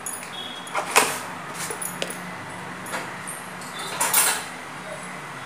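Metal kitchen utensils and steel dishes clinking and clattering off-camera, four or five separate knocks about a second apart, over a low steady hum.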